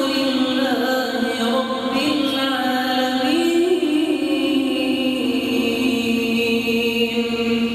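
Quran recitation in a melodic, chanted style: a single reciter's voice drawing out long held notes with ornamental turns in pitch, without a break.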